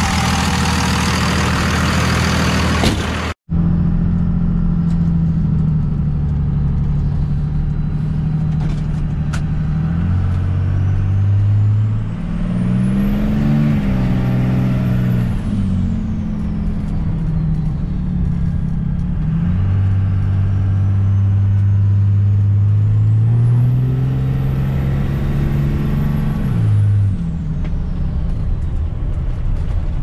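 Second-generation Dodge Ram's 5.9-litre Cummins straight-six turbodiesel idling, then heard from inside the cab accelerating hard twice, its pitch climbing and dropping back with each shift. Each pull carries a high turbo whistle that rises and falls away.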